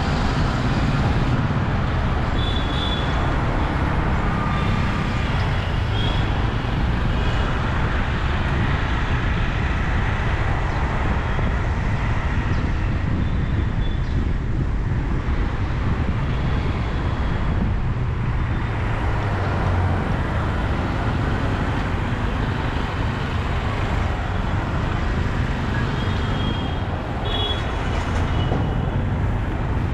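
Steady road traffic heard from a moving car: a continuous low rumble of engines and tyres. A few short high beeps come about two to three seconds in and again near the end.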